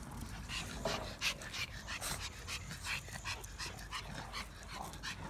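Boston terrier puppies yipping and whimpering as they play: a quick run of short, high cries, several a second.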